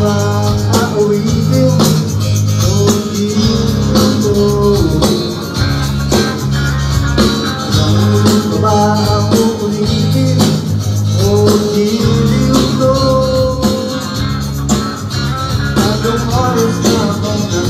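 Rock band playing live: drums, bass guitar and guitar, with a melodic line on top.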